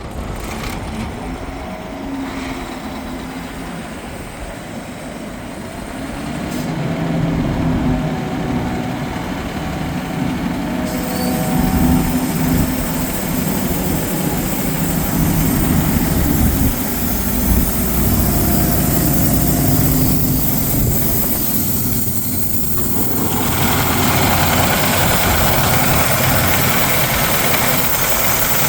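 Diesel engine of a Doosan HP1600WCU portable air compressor running steadily, growing louder after a few seconds. A high hiss comes in about eleven seconds in, and a louder broad rushing sound joins near the end.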